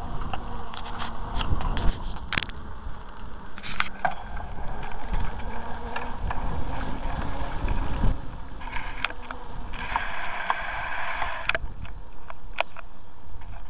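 Low rumble of travel over a wet, potholed lane, picked up by a mounted camera, with frequent sharp rattling clicks and knocks from the bumps. A steady hiss comes in for about a second and a half about ten seconds in.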